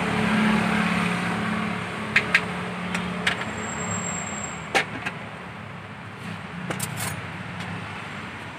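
A steady low engine hum that slowly fades, with a few sharp clinks of a metal ladle and spoons against bowls and glasses, about two seconds in and again around five and seven seconds.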